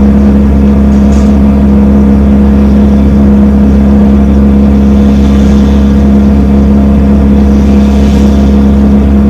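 Wood chipper's engine running steadily at a constant speed, a loud even drone with a strong low hum.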